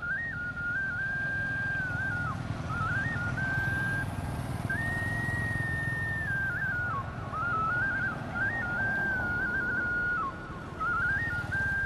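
A whistled melody: a single clear line of notes that steps and slides between held pitches, with brief gaps, over a steady low rumble.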